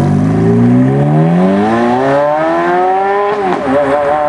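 Ferrari F430's V8 accelerating away, its pitch rising steadily for about three seconds. The pitch dips briefly about three and a half seconds in, then holds steady as the car pulls off.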